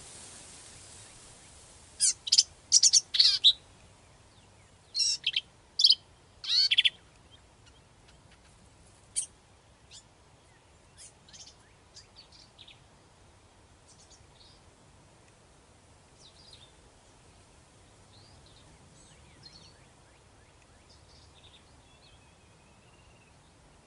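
Male black-capped vireo singing: loud, quick, high-pitched song phrases, a cluster of them in the first seven seconds and one more about nine seconds in. After that only faint, scattered chirps are heard.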